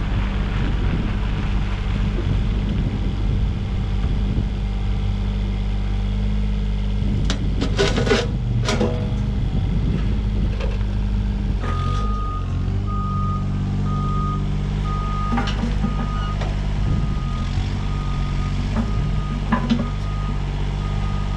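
2011 Yanmar SV15 mini excavator's diesel engine running steadily as the machine slews, changing pitch a little before halfway, with a few sharp knocks about seven to nine seconds in. From about twelve seconds in, a backup alarm beeps in an even repeating pattern.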